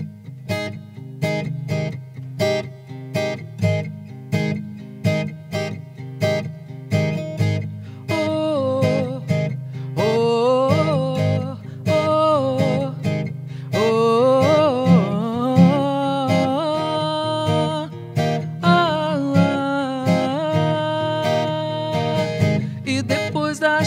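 Steel-string acoustic guitar being fingerpicked, about two notes a second. About eight seconds in, a woman's singing voice comes in over it with a slow, wavering melody.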